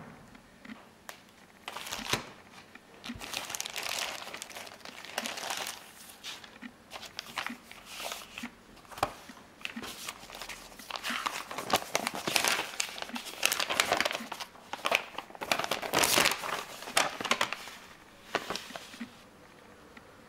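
Paper rustling and crinkling as printed booklets and loose sheets are handled, laid out and leafed through on a wooden tabletop, in uneven bursts with a few sharp knocks.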